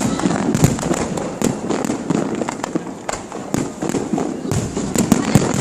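Fireworks display: a dense, irregular string of sharp bangs and crackles as many shells burst close together.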